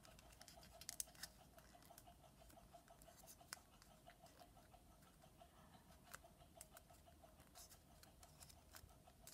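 Faint crinkles and small clicks of origami paper being creased and handled by hand, over a faint steady hum; the sharpest clicks come about a second in.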